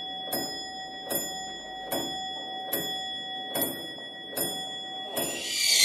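Clock ticking slowly, about one tick every 0.8 seconds, over a steady high held tone: a suspense sound effect. Near the end a loud hissing swell rises in.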